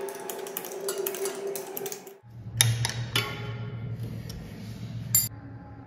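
Background electronic music with a ticking beat. It breaks off abruptly about two seconds in, then carries on with a low bass line and a few sharp clicks.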